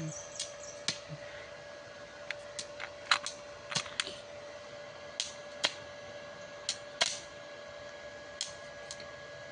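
Stick (MMA) welding arc from a small CNULOTC MMA-120 inverter welder burning steadily: a faint hiss broken by irregular sharp pops about once a second, over a steady whine.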